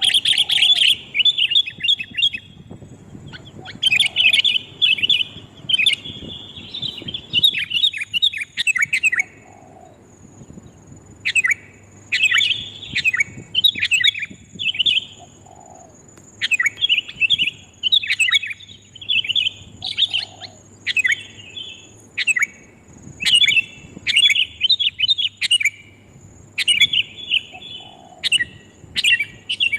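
Sooty-headed bulbuls (kutilang) calling loudly in repeated bursts of quick, chattering notes, a few short gaps apart, as a bird-lure recording. A faint steady high tone runs underneath.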